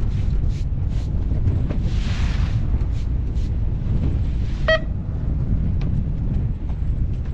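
Fishing boat's engine running with a steady low rumble under wind buffeting the microphone, with a brief hiss about two seconds in and a short high beep a little past halfway.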